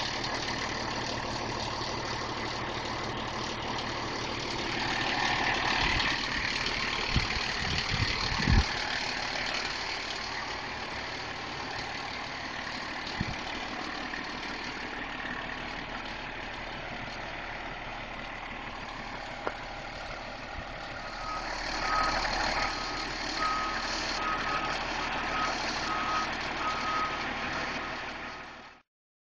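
Pierce fire engine's diesel engine idling steadily, with a few low thumps about a quarter of the way in. From about two-thirds of the way in, a backup alarm beeps repeatedly, about one and a half beeps a second, as the truck is put in reverse.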